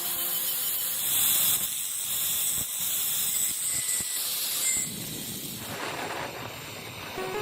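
A steady high hiss of a spray or air jet, strongest from about one second in until nearly six seconds in, then tapering off, with a few faint knocks.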